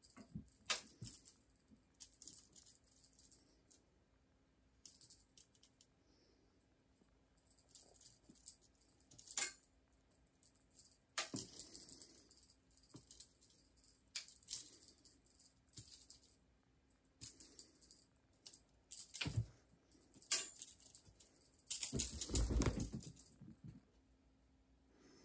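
Cat wand toy jingling in short irregular bursts as it is jerked and dragged across a wooden floor, with a few knocks and a longer low rumble near the end, over a faint steady hum.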